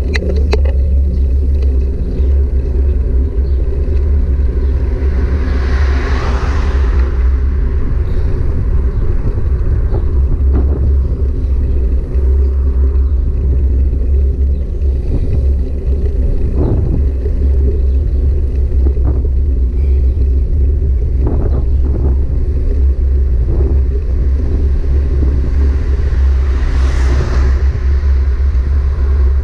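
Loud, steady low rumble of a bike ride on the road, with a hiss that swells and fades about six seconds in and again near the end.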